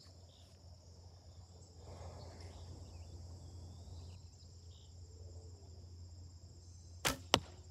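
Crickets chirring steadily. About seven seconds in, a Browning Explorer 1 recurve bow is shot: a short thump as the string is released, then about a third of a second later a sharp smack as the wooden arrow strikes the target.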